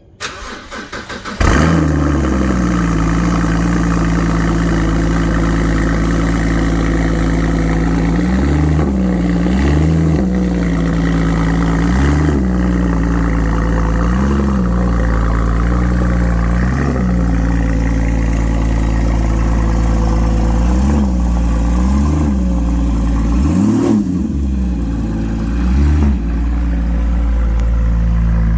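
Porsche Cayman GT4 (981)'s 3.8-litre flat-six starting: a brief stuttering crank, catching about a second and a half in, then idling steadily with short throttle blips every few seconds.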